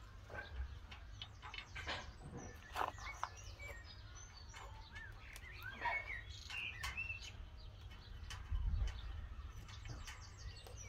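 Small birds chirping on and off in short rising and falling notes, with a few sharp clicks and knocks from satellite dish parts being handled during assembly.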